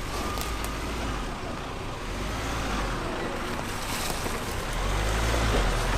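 Four-wheel-drive's engine running at low revs while crawling a rough track, growing a little louder near the end.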